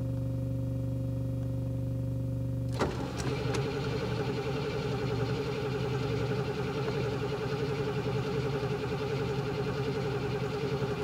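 Starter motor cranking the 3.5 V8 of a 1977 Range Rover Classic. It begins with a click about three seconds in and turns over steadily for about eight seconds without the engine catching; the owner suspects there is little or no fuel. Before the cranking there is a steady hum.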